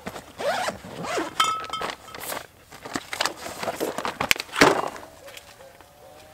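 Rustling and crinkling as a soft cooler bag is rummaged and a plastic-wrapped sausage pack is lifted out and handled, with a sharp knock about four and a half seconds in.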